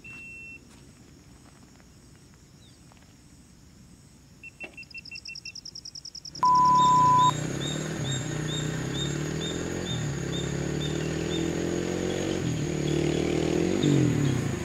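GoPro action camera beeping as it shuts down: one short beep, then a quick string of beeps. Then a loud, steady electronic beep tone about a second long. After it, a Hero XPulse 200 4V with a Motowings full-system exhaust approaches, its single-cylinder engine note rising and falling and getting louder as it nears.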